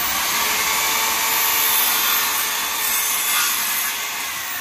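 Corded circular saw cutting across a wooden board: the blade runs loudly through the wood over a steady motor whine. The sound eases near the end as the cut finishes.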